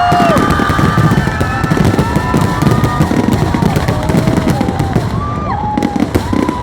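Fireworks display: a dense, continuous barrage of bangs and crackles, with several whistling tones that rise, hold and fall over it.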